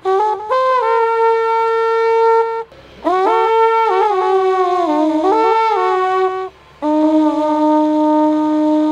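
A wind instrument playing a slow melody in three phrases separated by short pauses, its notes held long and sliding between pitches; the last phrase sits lower than the first two.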